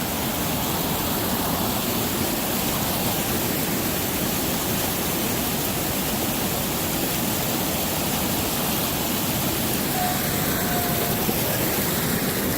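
Steady rushing of flowing water, a strong current running loud and even. A short faint tone sounds about ten seconds in.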